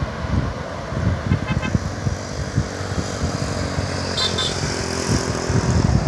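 Wind buffeting the microphone. A vehicle horn toots briefly, about a second and a half in and again around four seconds in, over the hum of road traffic.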